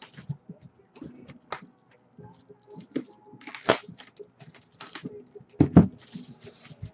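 Trading card box and its packaging being opened and handled: scattered clicks and taps with brief rustles, and two louder knocks, one a little past the middle and one near the end.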